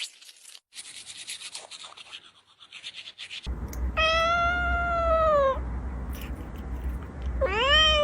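A domestic cat meows twice: a long drawn-out meow that falls in pitch at its end, then a shorter meow that rises and falls near the end. Before the meows there is a quick, scratchy rubbing sound.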